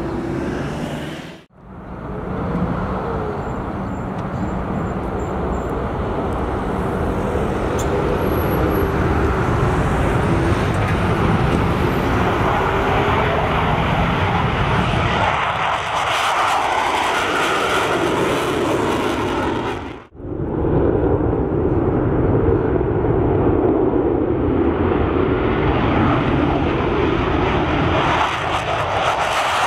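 Two F-16A/B MLU fighters taking off one after the other, each a loud, steady jet roar from its Pratt & Whitney F100 afterburning turbofan at takeoff power. The roar cuts out sharply for a moment about 1.5 s and again about 20 s in, then resumes.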